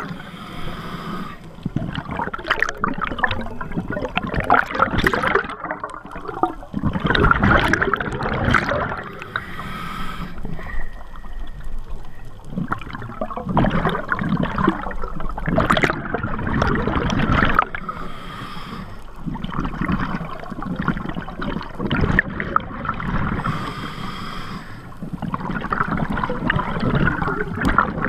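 A scuba diver breathes through a regulator, heard underwater from close by. It goes in cycles, each exhalation a loud rush of bubbles lasting a few seconds, with quieter gaps between. There are about five breaths.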